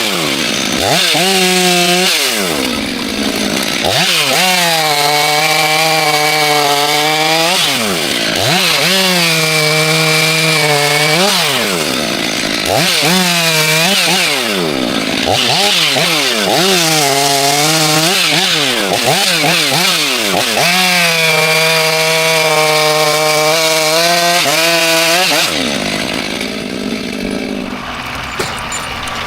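Two-stroke chainsaw revved up over and over, each time held at full speed for a few seconds through a short cut and then dropped back. About 25 seconds in it stops, and a quieter, steady engine sound carries on.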